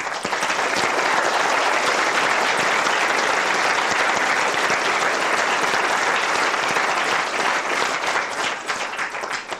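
Lecture audience applauding, a dense round of clapping that thins out to a few scattered claps near the end.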